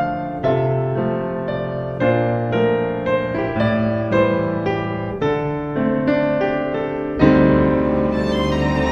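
Background music: piano playing a slow, gentle melody, a new note struck about every half second. Near the end a fuller, sustained chord comes in under it.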